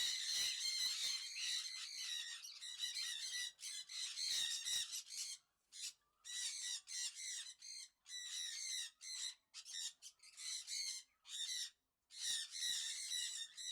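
A flock of small caged birds chattering and squawking, many calls overlapping. Later on the chatter comes in short bursts with gaps of silence between them.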